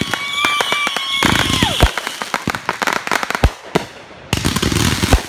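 Aerial fireworks going off: dense crackling and popping with several louder bangs, and a whistle that drops in pitch at about a second and a half in. A short lull comes near four seconds before the crackling resumes.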